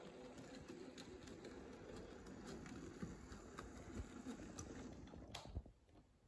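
Scratch-built N-scale narrow-gauge model steam locomotive and its wagons running on the track: a faint hum with light, irregular clicking, cutting off about five and a half seconds in.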